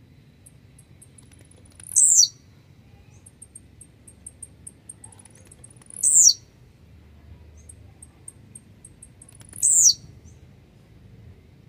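Blue-black grassquit (tiziu) giving its short, sharply falling 'tizíu' call three times, about four seconds apart. Faint, rapid high ticking notes run between the calls.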